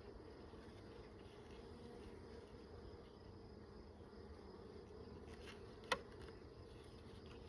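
Honeybees humming faintly around an open hive, with a single sharp click about six seconds in.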